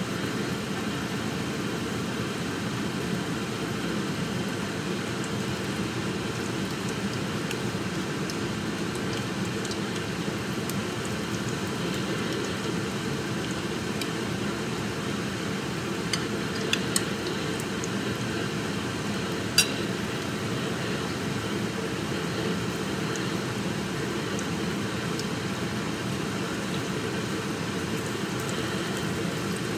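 Steady low hum and hiss, like a fan or appliance running, with a few light clicks between about 16 and 20 seconds in, the sharpest near 20 seconds.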